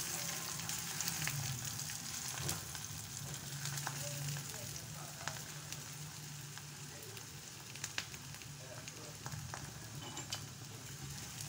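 Besan missi paratha frying in ghee on a hot tawa: a steady sizzle with small crackles and a few sharp clicks.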